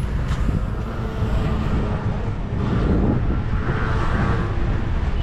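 City street noise: a steady low rumble of passing traffic, mixed with wind buffeting the microphone.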